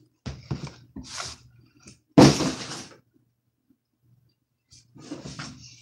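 Knocks and rustling from something handled close to the microphone, in short bursts. The loudest bump comes a little over two seconds in, followed by a brief quiet and more bumps near the end.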